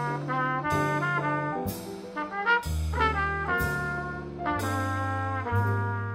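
Small jazz quartet playing: a trumpet carries the melodic line over grand piano, upright double bass and a drum kit with cymbal strokes.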